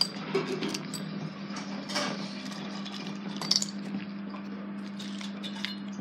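Frozen ice shapes being popped out of pop-it fidget toys and dropping into a cup, a handful of separate clinks, the loudest about three and a half seconds in, over a steady low hum.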